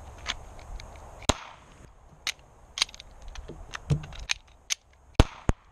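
Taurus PT111 9mm pistol being drawn and worked through a malfunction-and-reload drill: about a dozen sharp metallic clicks and clacks of the slide and magazine, spaced irregularly, the loudest two near the end.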